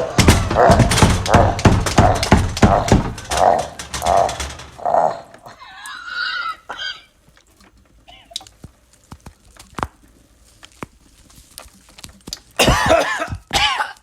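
A person's guttural, strained vocalizing in rapid pulses for about five seconds, then a brief higher moan, a quiet stretch with a few faint clicks, and harsh coughing near the end, as of a possessed victim in an exorcism.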